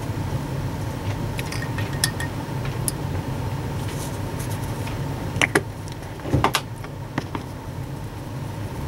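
Light clicks and small clinks of painting supplies being handled on a hobby desk, a few scattered early and a louder cluster about halfway through, over a steady low background hum.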